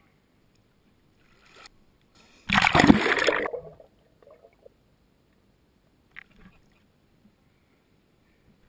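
Swimming-pool water splashing and sloshing over a waterproof camera at the surface, with one loud rush of water about two and a half seconds in that lasts about a second. A few faint sloshes and a short click follow.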